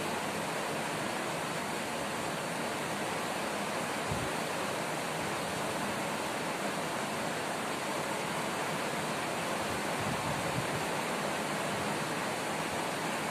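Steady, even background hiss, with a couple of faint low thumps.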